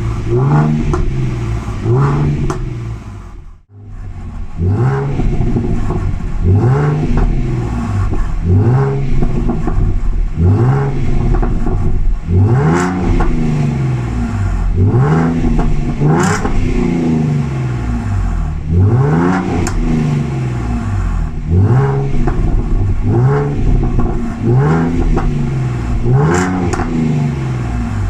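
Ford Mustang 3.7-litre V6 with a resonator-delete H-pipe exhaust and modified stock muffler, revved in neutral in repeated quick blips that rise and fall about every one and a half to two seconds. The sound drops out briefly a few seconds in, then the revving resumes.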